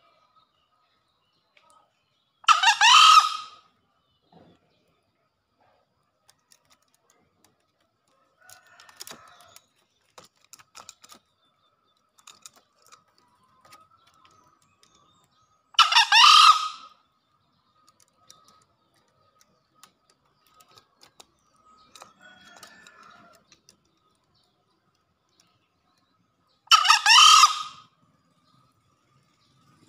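Male green junglefowl crowing three times, about ten seconds apart; each crow is a single short call lasting about a second.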